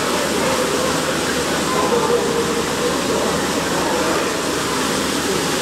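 Steady rush of falling water from an indoor waterfall cascade, an even noise with no breaks.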